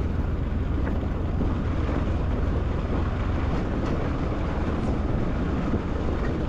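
Motorcycle running while being ridden off-road, with wind rushing over the microphone.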